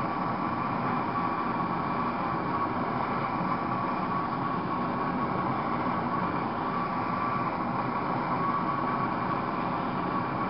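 MAPP gas blow torch with a TS8000 head burning steadily at a turned-up flame, a constant rushing hiss with a faint steady whistle-like tone, as it preheats a melting crucible.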